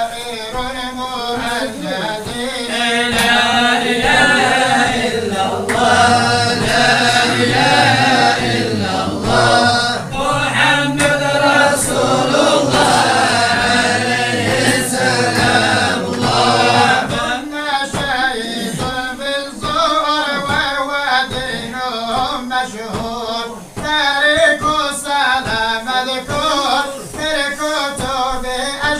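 A group of voices chanting a devotional song together, with long wavering held notes. About two-thirds of the way in, the singing turns to shorter, more rhythmic phrases.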